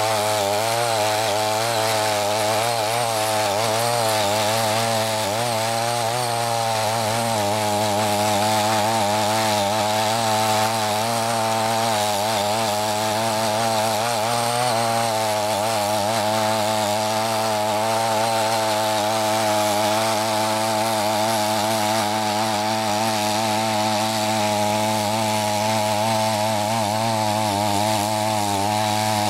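Small petrol engine of a CY50 mini tiller running steadily under load as its four rotary blades till soil and weeds, its pitch wavering slightly as the load shifts.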